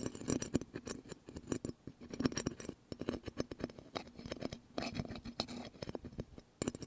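Rapid, irregular clicking and scratching from a small object worked right against an ASMR microphone, an ASMR trigger standing in for a tiny bugging device being planted.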